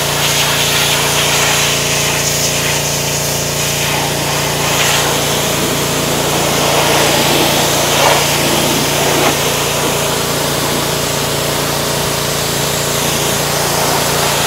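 Pressure washer running steadily: a constant hiss of high-pressure spray blasting dirt off a bulldozer, over the steady hum of the washer's motor.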